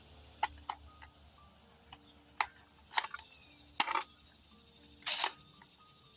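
A series of short, sharp mechanical clicks and clacks, about seven spread irregularly over several seconds, from an AR-15 rifle being handled and readied to fire. No shot is fired.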